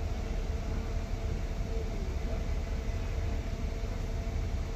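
Steady low rumble of city street ambience, like distant traffic, with a faint steady hum and faint far-off voices.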